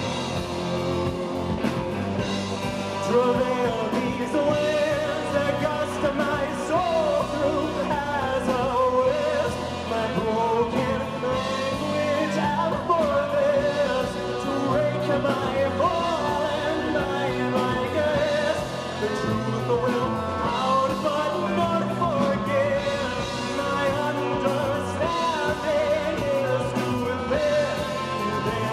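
Live progressive rock band playing, with a male lead vocalist singing over keyboards and drums.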